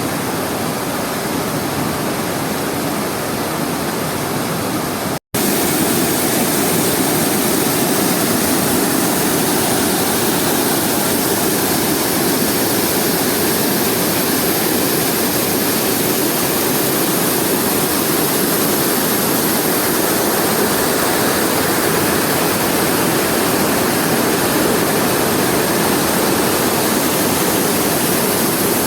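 Water of a waterfall about five metres high rushing steadily into a pool below. A brief gap about five seconds in, after which the rush comes back slightly louder.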